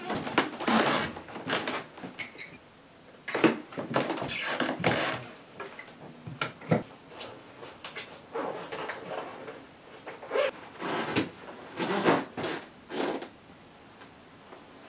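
Things being handled and moved about a room while tidying up: irregular rustling and scraping, broken by sharp knocks and clatters every second or two.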